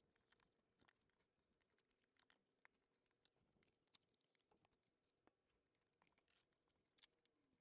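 Near silence, with a few faint, scattered ticks.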